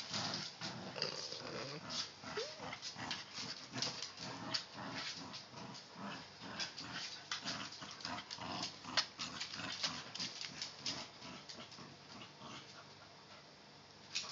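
A bulldog and a smaller fluffy dog play tug-of-war with a rope toy: dog growls and scuffling, with many sharp clicks and taps as they move on a hardwood floor. The activity is busiest for the first ten seconds or so and settles down near the end.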